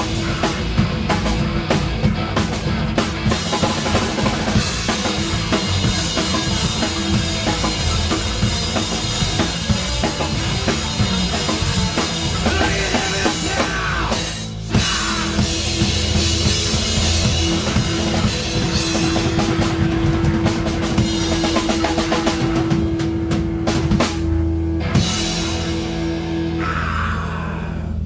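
A rock band playing live: drum kit with bass drum and cymbals driving the beat under electric guitar and bass guitar. In the second half a single note is held for about ten seconds over the drums.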